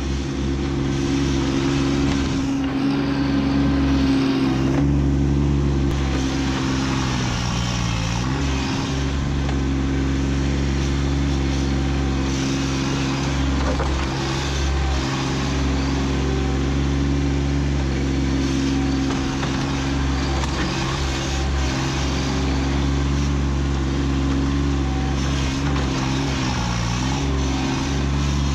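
Kubota B2601 compact tractor's three-cylinder diesel running steadily at working revs while the front loader digs at a stump. The engine pitch dips briefly twice, about 8 seconds in and near the end, as it lugs under the digging load.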